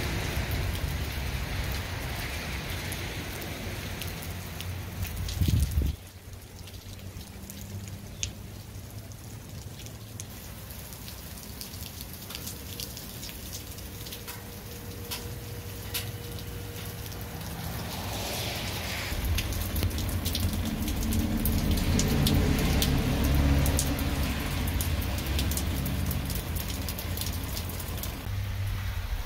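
Rain pattering steadily, with many scattered drops tapping on nearby surfaces, just after a hailstorm. A low wind rumble on the microphone cuts off suddenly about six seconds in and builds again in the second half.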